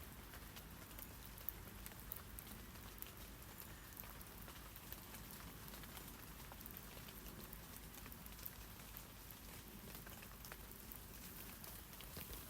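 Steady rain falling on tree leaves, a soft continuous patter with many scattered individual drop ticks.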